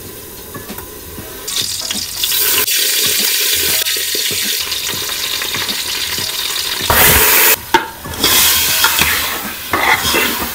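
Food sizzling in hot fat in an aluminium pot: the sizzle starts about a second and a half in and surges loudly about seven seconds in as marinated chicken is added, then a metal ladle stirs and scrapes the chicken in the pot.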